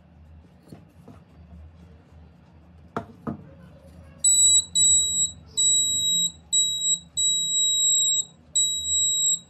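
An infrared proximity sensor circuit's alarm sounding a high, steady-pitched beep in six bursts of uneven length, switching on as a card is held in front of the sensor. Two light knocks about three seconds in, before the beeping starts.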